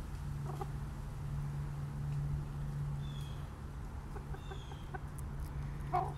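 Backyard chickens clucking softly a few times, the clearest cluck near the end. Faint short high chirps and a steady low hum are also heard.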